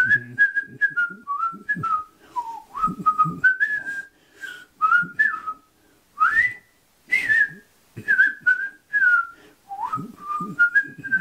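A person whistling a tune in short notes that step and slide up and down, pausing briefly a few times.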